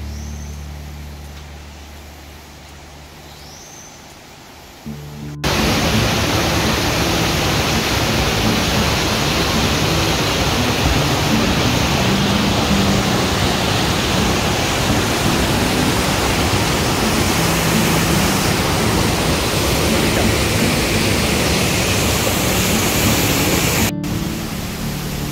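Fading acoustic guitar music, then about five seconds in a sudden change to the loud, steady rush of a mountain stream tumbling over rocks below a waterfall, which cuts off abruptly near the end.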